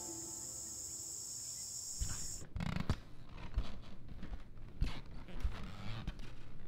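Steady night insect chirring, like crickets, cuts off abruptly a couple of seconds in. It is followed by irregular light knocks, clicks and rustles in a room.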